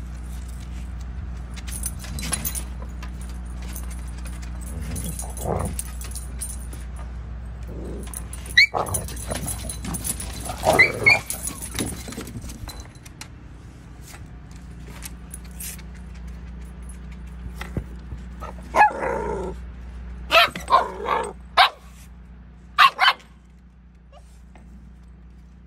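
Dogs yipping and barking in short bursts while playing: a few calls about a third of the way in, then a run of sharp yips and barks later on.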